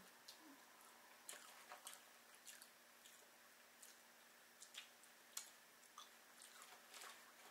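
Faint chewing and wet mouth clicks of people eating finger food, with scattered short soft clicks.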